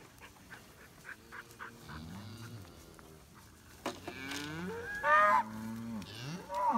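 Longhorn cattle mooing: one low moo about two seconds in, then a run of bawling moos from about four seconds, the loudest near five seconds with a higher pitch that rises and falls.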